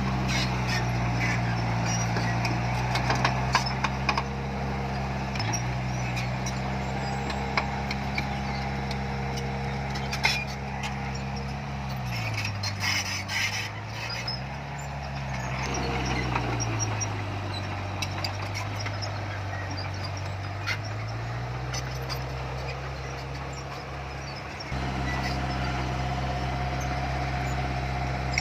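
Diesel engine of a heavy earthmoving machine running under load, its speed sagging twice in the middle and coming back up, with scattered metallic clanks and clicks. The low rumble steps up suddenly near the end.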